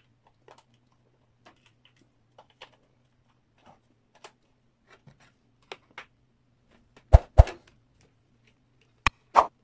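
Faint ticks and light clicks from a power cable and its DC barrel plug being handled, over a low steady hum. Two pairs of loud, sharp clicks follow, one pair about seven seconds in and another near the end.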